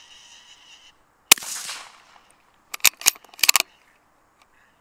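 .17 HMR rifle fired once about a second in, a follow-up shot at a hog, with a short ringing tail of echo. A quick series of sharp clicks follows about a second and a half later.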